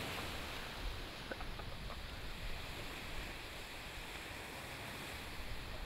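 Steady rushing noise and low rumble of an erupting volcano heard from the outside, with wind on the microphone, as glowing lava bombs fall back and scatter down the slope; a few faint clicks come in the first three seconds.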